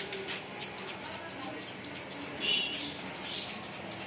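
Barber's scissors snipping hair in a quick, steady run of short, crisp snips, about six a second.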